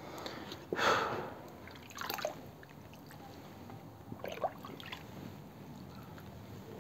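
Water in a plastic paddling pool sloshing and dripping in a few short splashes as a hand moves in it, the loudest about a second in.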